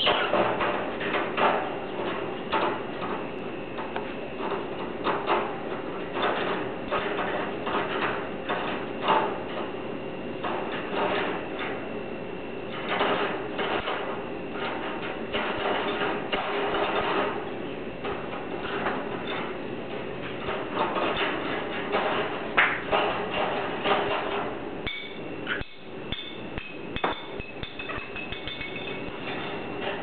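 Budgie batting a hollow plastic ball against the wire bars of its cage: many irregular clattering knocks and taps, thinning out in the last few seconds.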